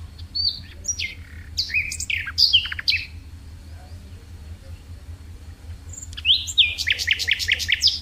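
A songbird singing two phrases of varied sliding notes, the second near the end finishing in a quick run of repeated falling notes. A steady low hum runs underneath.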